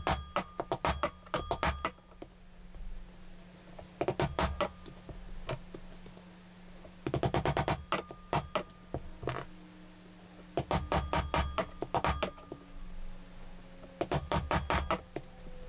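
Mallet striking a diamond pricking iron, driving it through the layers of a leather wallet on a rubber-topped pounding block. The strikes come in five bursts of rapid taps, several a second, with pauses between as the iron is moved along the stitch line.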